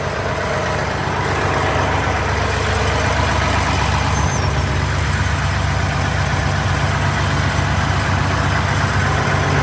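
A heavy diesel truck engine idling steadily.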